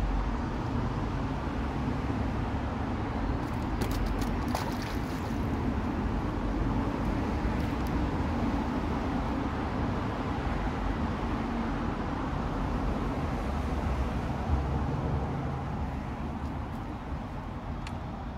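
Steady outdoor background rumble with hiss. A short run of sharp clicks comes about four seconds in.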